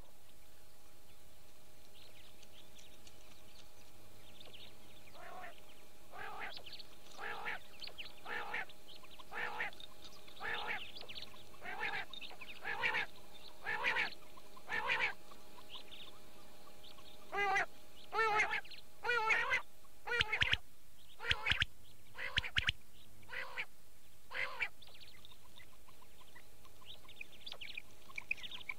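Quail calling over and over, short calls about one a second that start faintly and then come clearly, over a faint steady hum.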